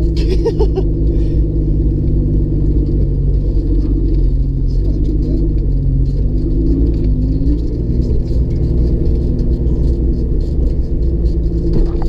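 Jeep's engine and drivetrain running steadily under way, heard from inside the cabin as a low rumble. The engine note dips and rises a few seconds in, with faint ticks and rattles over it.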